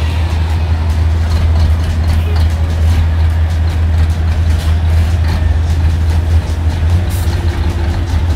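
Race truck's heavy diesel engine running at low revs, a deep steady drone, as the tractor unit pulls slowly away.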